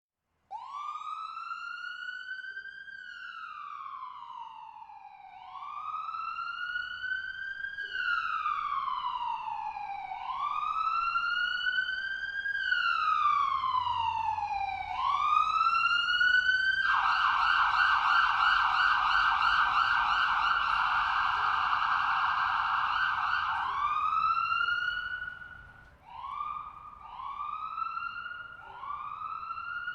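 Ambulance electronic siren in a slow wail, rising and falling about every five seconds and growing louder. About seventeen seconds in it switches to a fast yelp for several seconds, then returns to short rising whoops near the end.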